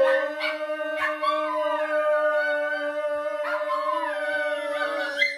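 A dog howling: one long, steady note held for about five seconds, with higher sliding howls over it, cutting off suddenly at the end.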